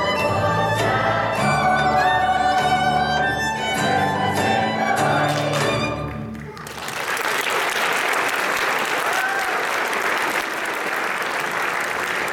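A choir song with string accompaniment finishing: the music cuts off about six and a half seconds in, and an audience applauds for the rest.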